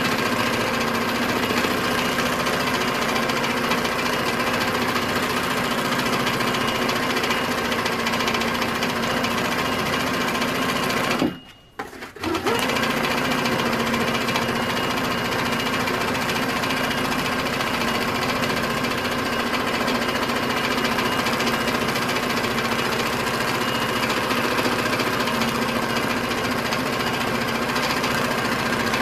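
Tiara sewing machine running at speed, stitching free-motion embroidery with a steady rapid needle chatter. The running breaks off for about a second around eleven seconds in, then picks up again.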